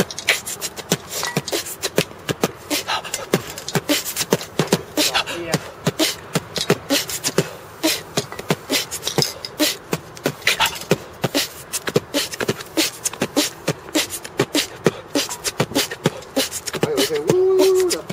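A man beatboxing: a fast, irregular stream of percussive mouth hits and clicks with a few short voiced sounds, closing with a held hummed note about a second before the end.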